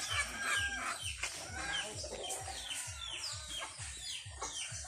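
Chickens clucking and peeping, with many short, quickly falling chirps one after another. A low, even thumping beat runs about three times a second underneath.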